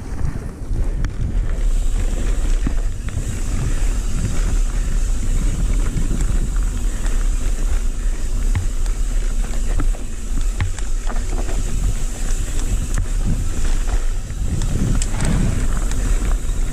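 Mountain bike descending a dirt trail: a steady rush of wind on the handlebar camera's microphone over the rumble of the tyres, with frequent small clicks and rattles from the bike over the bumps.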